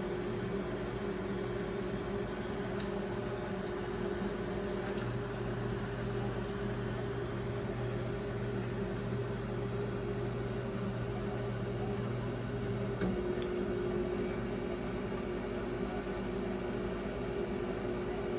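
1996 Brastemp Clean BMP31 microwave oven (Samsung-built) running a reheat cycle: a steady hum of the transformer and cooling fan. The low hum shifts in level a few seconds in, and there is a small click about thirteen seconds in.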